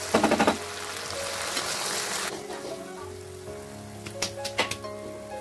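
Thick masala gravy sizzling in a frying pan. It is stirred with a wooden spatula in a few quick scraping strokes just after the start, and a few sharp clicks come near the end.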